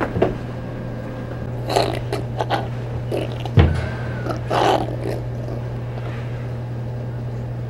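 A mouthful of raw apple being bitten and chewed: bursts of crisp crunching, with a single low thump about three and a half seconds in, over a steady low hum.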